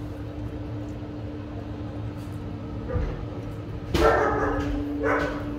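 Very young puppies, about two and a half weeks old, squealing and whimpering: a sudden short cry about four seconds in and a shorter one near the end.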